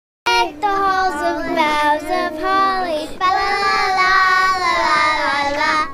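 A child's high-pitched voice singing a song with words, starting abruptly about a quarter second in after silence and cutting off at the end.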